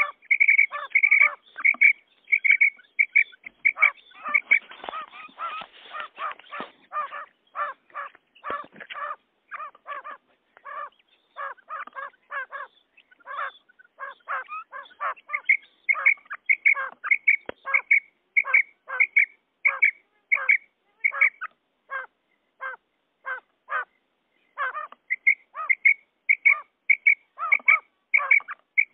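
Common quail (batair) calling, the repeated 'kirak' call used as a lure for netting quail: a long run of short, sharp notes, about two a second. The calls grow fainter for a while in the middle, then come louder again, with a denser tangle of overlapping notes a few seconds in.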